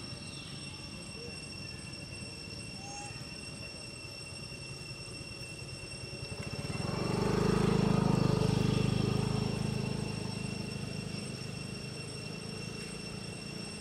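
A motor vehicle passing along the road: its engine and tyre noise swell up about halfway through, peak, and fade away over a few seconds. Steady high insect tones continue underneath.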